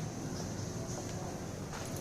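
Quiet outdoor background: a steady high-pitched drone over a low even hum, with a few faint taps near the end.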